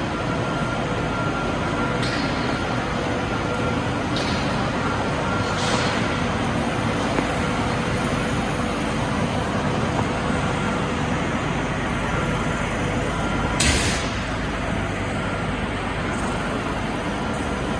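Chalk-block polishing line running: a steady machine noise with a constant hum, broken by a few short hissing bursts, the loudest about 14 seconds in.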